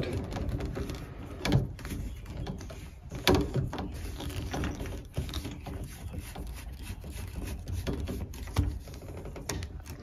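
Handling noise with scattered clicks and taps as a washing-machine hose and its plastic coupling nut are worked onto a brass flush valve, under a low rumble.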